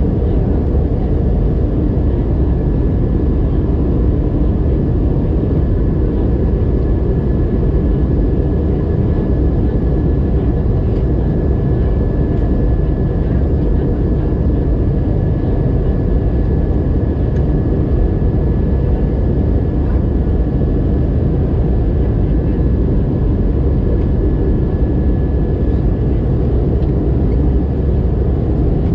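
Steady cabin noise inside an Airbus A320-200 in flight: a constant low rumble of engines and airflow, with a faint high steady whine over it.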